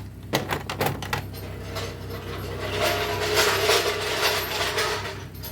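Hand tools at work: a run of sharp metallic clicks, then steadier ratcheting and mechanical clatter from about halfway through.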